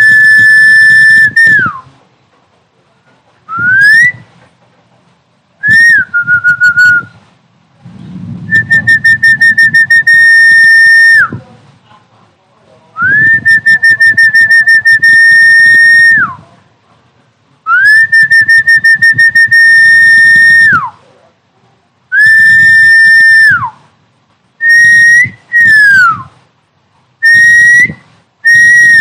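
Snakehead fish-calling sound played back: a loud whistle in about ten held notes at nearly the same pitch, each one to three seconds long with short gaps, several ending in a quick downward slide, a couple sliding up, and some pulsing rapidly.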